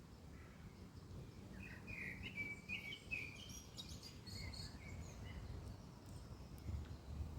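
A small songbird chirps a quick run of short notes about a second and a half in, then a few fainter ones later. A low background rumble runs underneath.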